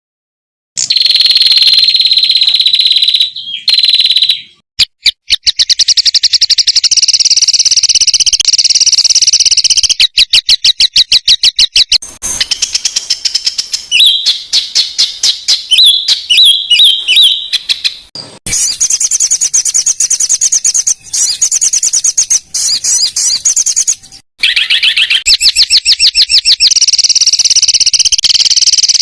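Recorded songbird song for training competition birds: loud, high-pitched, rapid strings of repeated notes and trills, the dense 'tembakan' phrases. It is broken by short gaps where the song cuts off suddenly and restarts, as in a spliced recording.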